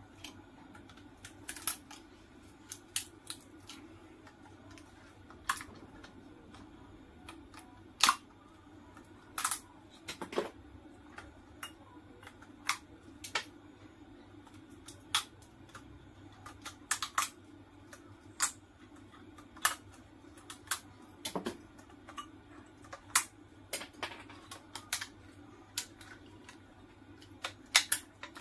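Irregular sharp metallic clicks and snaps as pliers pry and snap the nickel strips off the lithium-ion cells of a DeWalt battery pack, about one every second or two, over a faint steady low hum.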